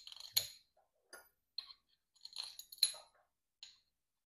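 Long steel AN quarter-inch bolts clinking against an aluminum propeller hub as they are slid through its bolt holes one by one: a scatter of light metallic clicks and taps, the sharpest a little under 3 seconds in.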